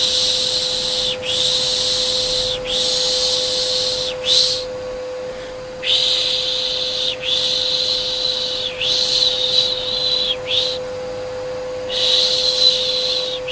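Repeated 'shh, shh' shushing for soothing a baby, in hissing strokes about a second and a half long with short breaks, pausing twice. Under it runs the steady, even hum of a vacuum cleaner.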